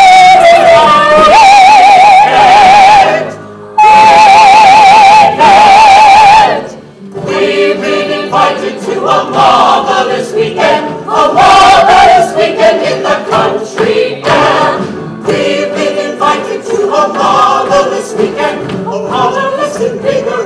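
Musical-theatre cast singing an ensemble number, recorded loud and overloaded. A single voice holds a long high note with a wide vibrato, breaks briefly, and holds it again. After that the whole ensemble sings on together in chorus.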